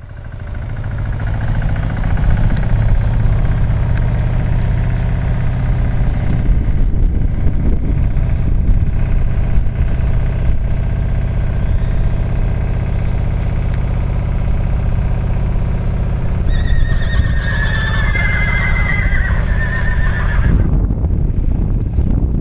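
A horse whinnies near the end, one long wavering call lasting about four seconds, over a steady low hum that cuts off suddenly shortly after.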